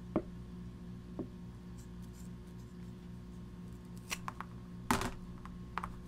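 Scissors cutting Dyneema line: a couple of faint clicks early on, then a cluster of sharp snips about four to five seconds in, the loudest just before the five-second mark.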